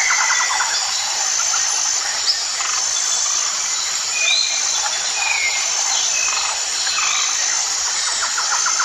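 Tropical jungle ambience: a dense chorus of insects with a high, repeating buzz, and scattered short bird whistles. A rapid pulsed call starts near the end.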